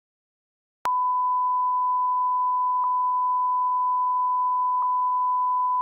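Silence, then just under a second in a steady pure electronic beep tone starts abruptly and holds at one pitch, with a faint tick about every two seconds.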